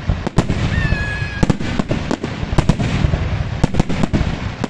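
A fireworks display: a quick run of sharp bangs and crackles over a constant low rumble, with a whistling firework heard briefly about a second in.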